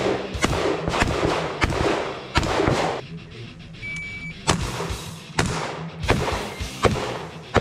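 Shotgun shots fired in quick strings, sharp reports roughly every half second to second, over background music. Midway the shooting pauses and a shot timer beeps once, then a new string of shots follows at a slower, even pace.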